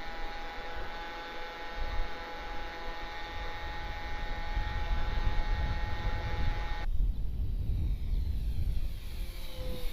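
Radio-controlled Cessna TTX model plane's motor and propeller running at a steady pitch, then cutting off abruptly about seven seconds in, as when the throttle is closed. A low rumble, like wind on the microphone, runs underneath and grows louder after the first two seconds.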